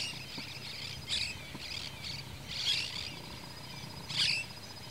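Small birds chirping in short, high calls, the loudest near the middle and near the end, over a steady high insect trill.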